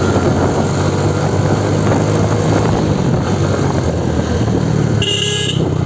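Motorcycle engine running steadily while riding, picked up by a helmet-mounted phone, with a brief high tone about five seconds in.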